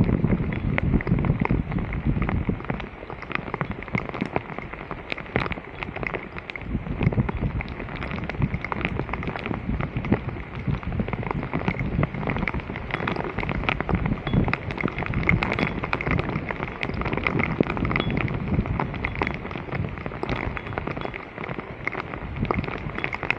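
Floodwater splashing and rushing around a blocked street drain, with many scattered clicks and knocks throughout.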